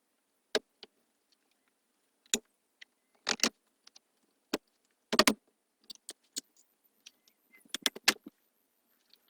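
Irregular sharp clicks and knocks of hardware and hand tools being worked on a sliding barn door's slider, several coming in quick clusters, the loudest a little past halfway.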